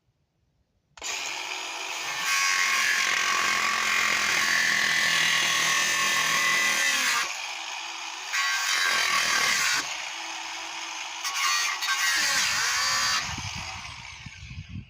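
Angle grinder starting about a second in and cutting into the rusted-through air-release pin of a steel water tank. The loud ringing cut eases off twice into quieter spells, then the grinder spins down near the end.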